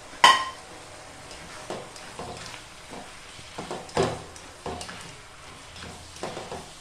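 A metal utensil clinks sharply against a cooking pot about a quarter second in and rings briefly, followed by scattered knocks and scrapes of stirring in the pot. A faint steady hiss of the cooking food runs underneath.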